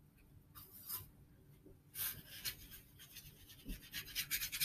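Small paintbrush stroking across watercolor paper with a soft scratchy sound, in three bursts, the last a quick run of short strokes.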